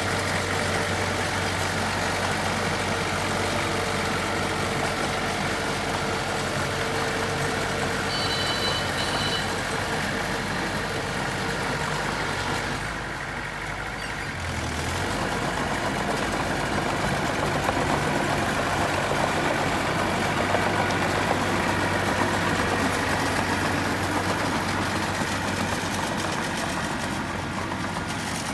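Diesel engine of heavy earthmoving equipment running steadily, with a brief high-pitched tone about eight seconds in and a short dip in level around the middle.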